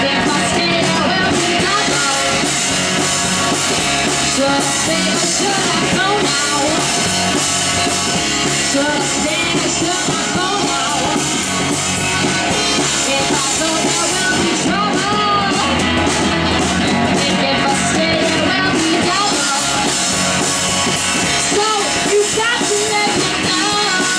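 Live rock band playing loudly: electric guitar, bass guitar and a drum kit, with a woman singing into the microphone.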